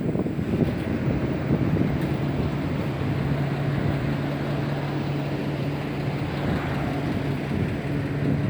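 A motor running steadily under a rumble of wind noise, with a low, even hum.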